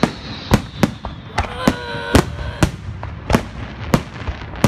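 Fireworks display: aerial shells bursting in a quick string of sharp bangs, about two a second. A brief steady high tone sounds about two seconds in.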